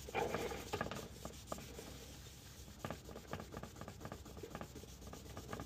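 Fingers rubbing gritty dirt back and forth over the painted metal cover of an electrical panel, scrubbing off Sharpie lettering: a faint, repeated scratchy rubbing.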